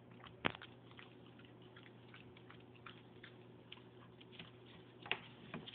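Small dog licking and smacking at peanut butter on a paper plate: faint, irregular wet clicks of tongue and lips, with a sharper click about half a second in.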